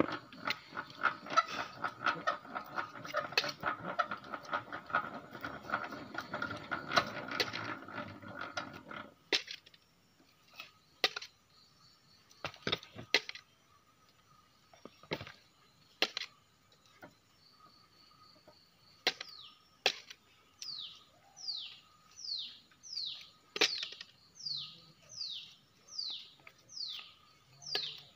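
Hand-cranked stainless-steel honey extractor spinning, a steady whirr with rapid rattling from its gearing, which stops suddenly about nine seconds in. After it come scattered sharp clicks and knocks. From about two-thirds through, a bird repeats a short falling whistle, about one and a half notes a second.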